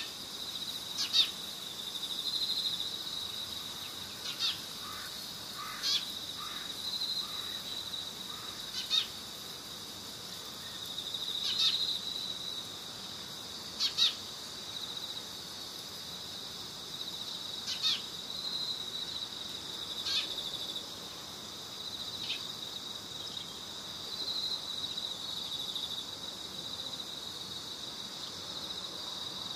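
Short, sharp high-pitched bird-like chirps about every two to three seconds, over a steady high-pitched trill.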